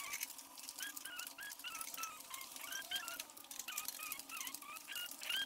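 Paper flyers rustling with light clicks as they are handled at a bank of apartment mailboxes, with short high chirps repeating a few times a second throughout.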